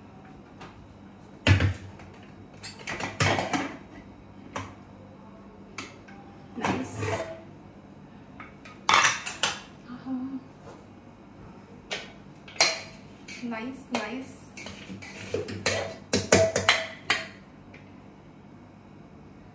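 Metal clanks and scrapes of an aluminium pressure cooker being handled and a steel ladle stirring cooked pea rice inside it: irregular knocks against the pot, some with a short ring.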